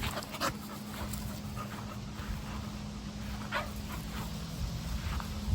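American bully dog panting, with a few short breaths standing out, over a steady low hum.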